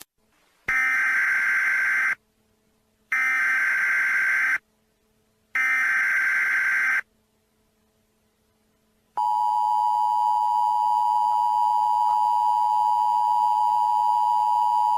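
Emergency Alert System tones: three SAME header data bursts, each about a second and a half long with about a second of silence between them. About nine seconds in, the steady two-tone EAS attention signal begins and holds.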